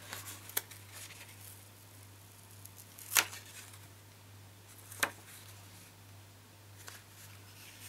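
Paper and cardstock being handled on a craft table: a few light taps and paper sounds, the sharpest about three and five seconds in, over a faint steady low hum.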